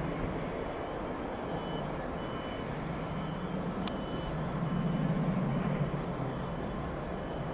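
A steady low engine rumble that swells slightly about five seconds in, with a high reversing alarm beeping several times in the first half.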